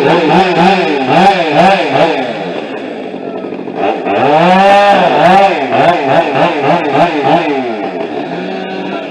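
Chainsaws running and revving up and down over and over, cutting into felled trees. About four seconds in, one saw rises in a long rev and falls back.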